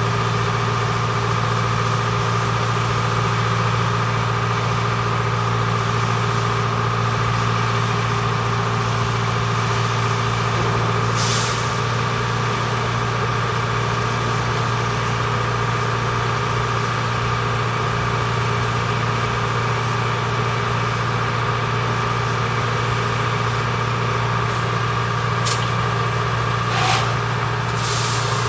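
Engine of a yellow rail maintenance-of-way machine idling steadily with a deep hum. Short hisses of released air cut in about 11 seconds in and a few more times near the end.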